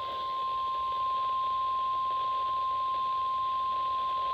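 NOAA Weather Radio 1050 Hz warning alarm tone: one steady, unbroken beep at a single pitch, over faint radio hiss. The tone alerts weather-radio receivers before a warning message.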